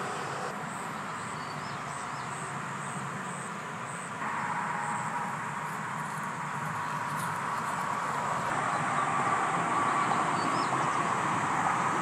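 Steady outdoor ambience: a constant hiss with a high, pulsing insect-like call and a couple of faint chirps. It steps louder about four seconds in and again past the middle.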